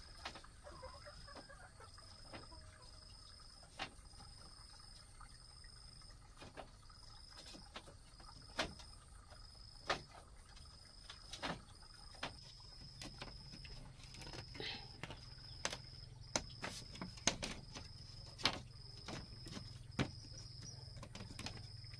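A faint high chirp repeating steadily about one and a half times a second, with scattered sharp clicks and knocks. A low hum comes in about halfway through.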